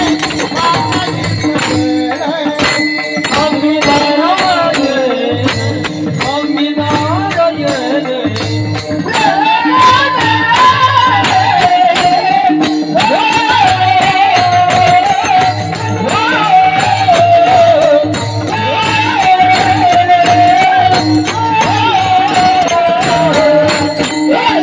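Devotional kirtan music: a wavering melody line over an even drum beat, with steady jingling, rattling percussion.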